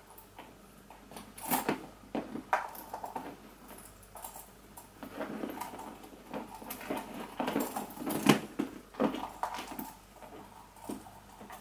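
Small metal clasps and charm hardware clinking and rattling, with rustling as hands handle the bag: a bag charm being unclipped and another clipped onto a handbag. The sounds come as irregular clicks and jingles, the sharpest one about eight seconds in.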